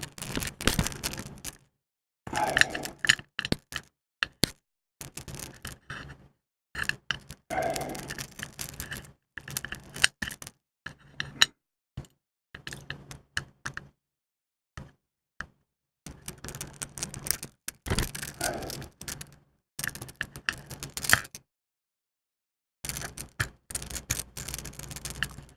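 A small Ilco mortise lock cylinder being handled and worked with its key: scattered metallic clicks, light knocks and scrapes of key and cylinder parts, in short clusters with brief pauses.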